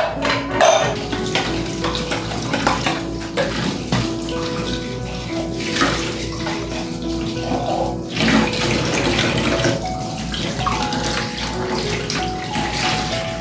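Water running steadily from a tap, under soft background music with a simple melody.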